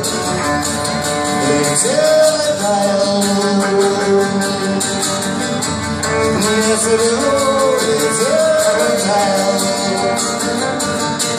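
Live acoustic music: an acoustic guitar strummed in a steady, fast rhythm under a double bass played with the bow, carrying a melody with slow sliding notes.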